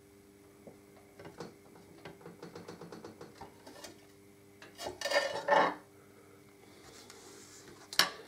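Light metallic clinks and scrapes of a hand tool working against the motorcycle's gearbox mounting while the gearbox is levered up to line up bolt holes, with a louder burst of metal noise about five seconds in and a sharp click near the end.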